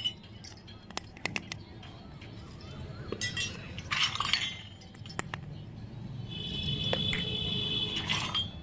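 Miniature stainless-steel toy plate and bowl set down on concrete: scattered light metallic clinks and taps. Near the end a steel piece rings with a high tone for about a second and a half.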